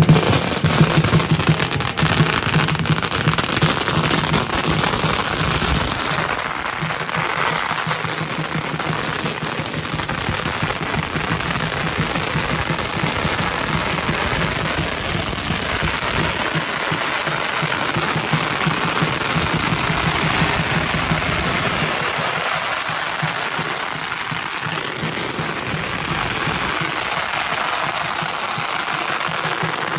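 Firecrackers going off in a long string, a dense continuous crackle that runs without a break.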